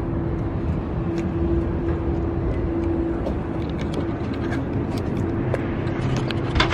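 Steady outdoor background noise with a low rumble and a held mid-pitched hum, like a running engine or traffic nearby, with a few faint clicks near the end.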